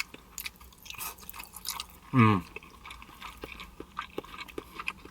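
Close-miked chewing of creamy penne pasta, with many short wet mouth clicks and smacks. A brief falling hum comes a little after two seconds in.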